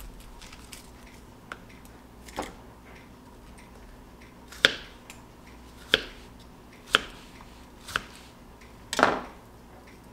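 Chef's knife cutting through a sweet onion and knocking on a cutting board: a handful of sharp knocks, most about a second apart, the last one a little longer.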